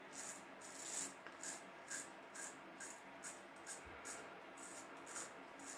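Wilkinson Pall Mall safety razor scraping through stubble in short, repeated strokes, about two a second, cutting smoothly without tugging.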